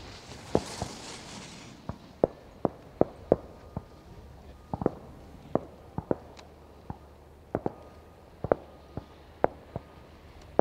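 Fireworks shells bursting at a distance: a string of sharp bangs at irregular intervals, about one to two a second.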